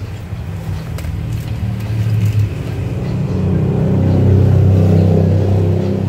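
A motor vehicle engine running and passing, a low hum that swells to its loudest about four to five seconds in and then fades.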